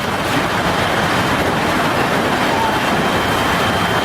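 Severe storm: a steady, dense rushing noise that comes in sharply at the start and holds.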